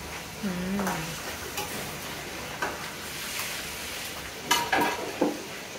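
Chopped pork sizzling as it fries in a wok on a gas stove while a metal spatula stirs and scrapes it. Sharp clacks of the spatula against the wok come now and then, loudest in a quick cluster near the end.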